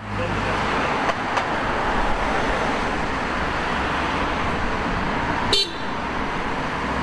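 Steady city road traffic: cars running past in slow, dense traffic, with one brief horn toot about five and a half seconds in.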